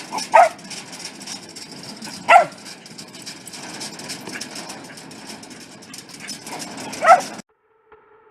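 A dog giving three short, high barks a couple of seconds apart over a steady background hiss; the sound cuts off suddenly near the end.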